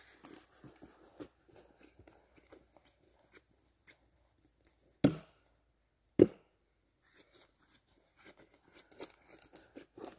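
Footsteps crunching over dry twigs and forest litter, with two sharp knocks about a second apart midway through.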